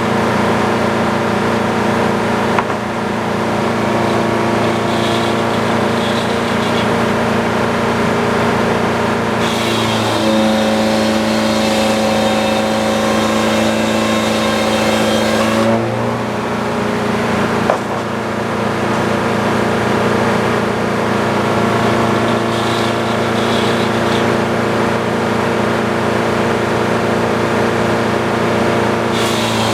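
Sawmill running and sawing boards from a log, a steady engine note under the cut. The note steps up and turns brighter for about six seconds near the middle, and again just before the end.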